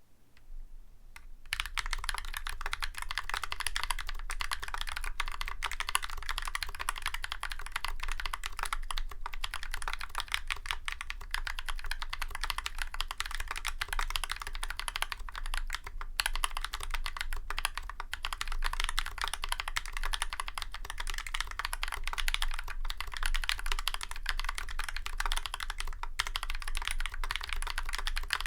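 Fast continuous typing on a mechanical keyboard with lubed YOK Holy Panda tactile switches and GMK keycaps, a dense stream of key clacks starting about a second and a half in, with a few brief pauses.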